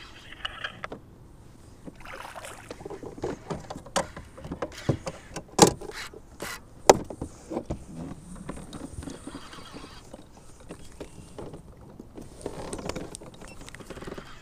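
Scattered knocks and clicks of gear against a fishing kayak's hull, with a few brief water swishes, while a hooked northern pike is played on a baitcasting rod.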